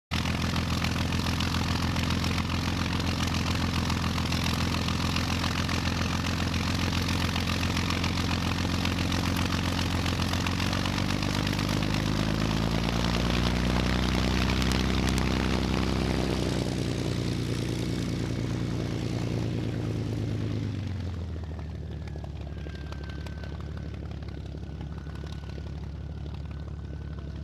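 Radio-controlled model airplane's motor and propeller running on the ground, steady with the pitch climbing a little in the middle. About three quarters of the way through it is throttled back to a quieter steady run with a thin high whine.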